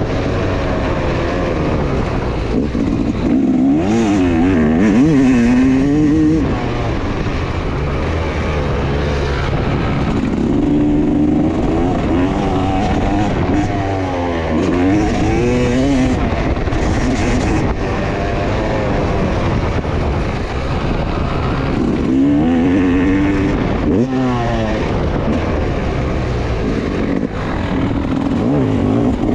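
Motocross bike engine heard from on board, revving up and dropping back over and over as the throttle is opened and shut around the track.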